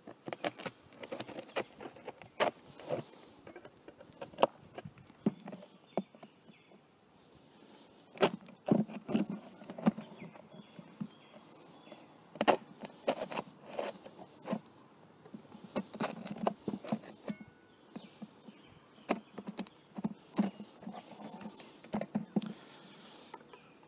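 A metal blade scraping old beeswax brood comb off a wooden frame: irregular rasping scrapes and sharp clicks in clusters, with short pauses between strokes.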